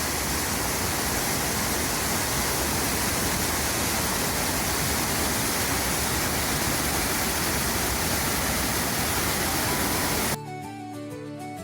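Waterfall in a mountain gorge: a steady, loud rush of falling water that cuts off suddenly about ten seconds in, giving way to music with plucked, harpsichord-like notes.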